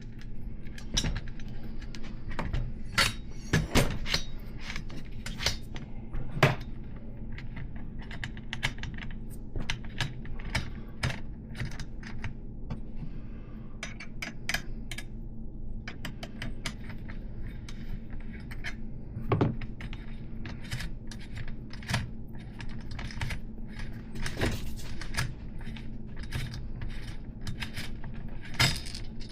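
Irregular metallic clicks and clinks of a wrench and loose axle parts (nut, washers, spacers) being worked on a BMX hub's 3/8" solid axle, over a low steady hum.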